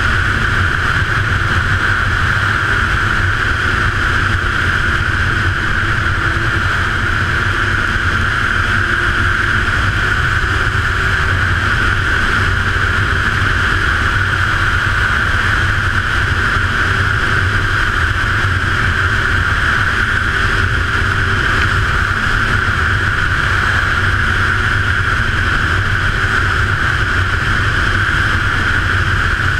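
A 2014 Ski-Doo Renegade snowmobile's 900 ACE three-cylinder four-stroke engine and track running steadily while the sled travels along a snow trail, heard close up from the handlebars.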